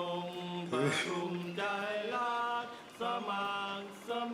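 Men singing a slow tune in long held notes, with short breaks between the notes.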